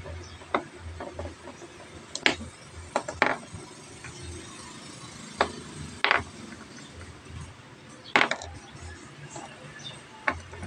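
Small stones clicking against a metal magnet and against each other as they snap onto it and are set down, about eight sharp clicks spread a second or so apart.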